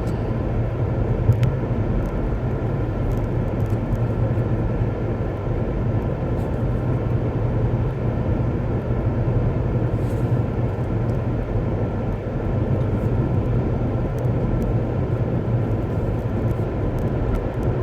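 Steady road and engine noise inside a moving car's cabin, with one short click about a second in.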